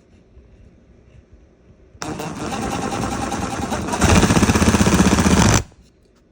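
Power drill running, driving the machine screw that holds the tote's plastic latch tight. It starts suddenly about two seconds in, gets louder partway through, and stops suddenly.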